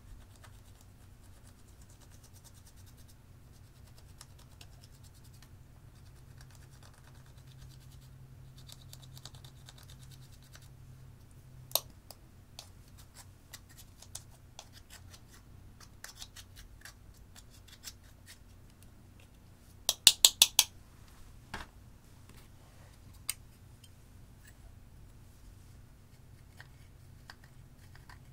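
Small metal spatula scraping pressed eyeshadow out of plastic palette pans: fine scratching with scattered sharp clicks, and a quick run of about five loud taps about twenty seconds in.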